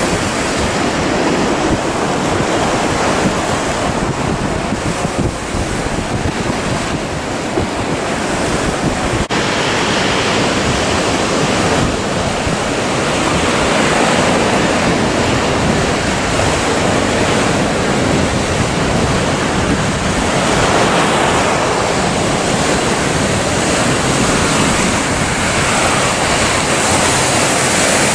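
Heavy surf breaking and rushing, with wind buffeting the microphone, in a loud, steady wash of noise. There is a sudden break about nine seconds in.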